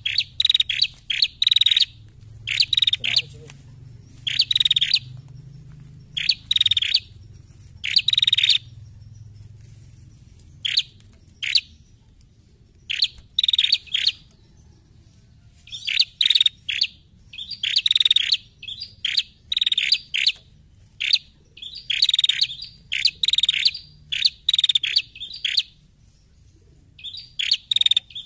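Female prenjak calling: clusters of quick, sharp chirps, one cluster every second or so, with short pauses between bouts.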